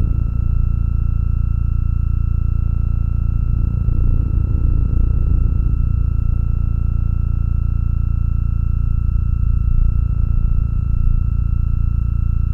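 Hypnotic, mantra-like electronic drone: a deep, steady low hum with pure high tones held unchanging above it. A rougher layer in the low middle swells and eases back every few seconds.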